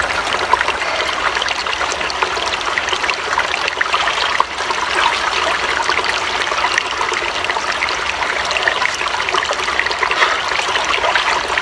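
Small creek trickling and babbling steadily, a constant rush of running water dotted with little splashes.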